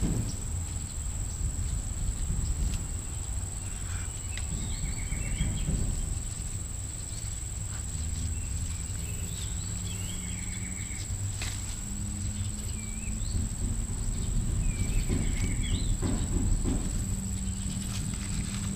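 Outdoor ambience: a steady, high-pitched insect drone and a bird repeating a short chirped phrase ending in a trill every few seconds. Underneath is low rumbling and rustling from a cat moving about in the grass and from handling, with a few sharp clicks.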